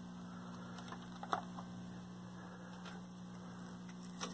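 Steady low electrical hum from a running 1973 Admiral hybrid tube colour TV on the bench, with a few faint clicks; the last click, near the end, comes as a hand takes hold of the set's rotary tuner knob.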